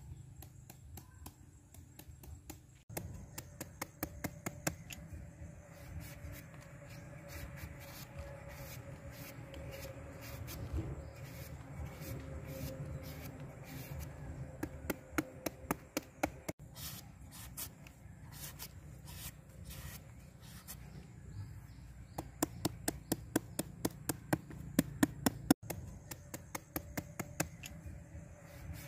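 Cleaver chopping quickly into a firm vegetable held in the hand, scoring it with strings of sharp strokes about four a second, in three runs, over a steady low hum.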